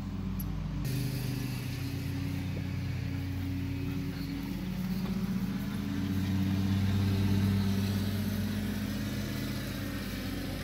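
A motor vehicle's engine running steadily with a low hum that rises in pitch and gets louder midway through, then eases off near the end.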